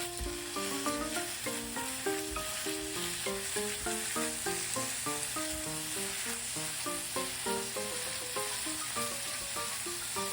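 Food sizzling as it fries in a pan: a steady crackling hiss. Background music with a light melody of short notes plays over it.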